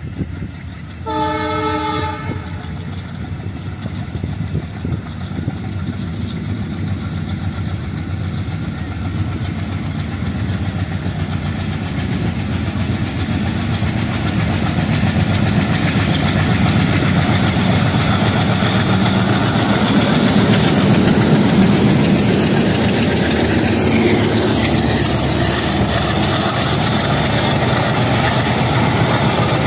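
Twin ALCO diesel locomotives hauling a passenger train: one horn blast about a second in, then the engines' exhaust and the wheels' rumble and clatter over the rail joints build steadily louder as the train approaches and passes close by.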